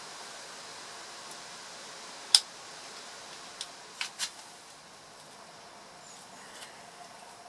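Sharp plastic clicks as a small screwdriver pries the latches of a Fiat Albea engine ECU wiring-harness connector and its inner pin block snaps free: one loud click about two seconds in, then three smaller ones over the next two seconds, over a steady hiss.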